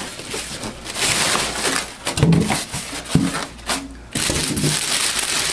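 Styrofoam packing end caps being pulled off a printer in a clear plastic bag: plastic crinkling and foam rubbing, with a few short squeaks from the foam.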